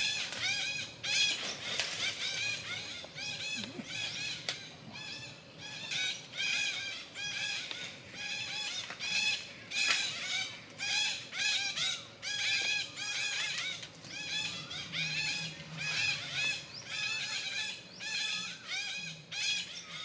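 Parakeets chattering: a dense stream of quick, high, overlapping chirps.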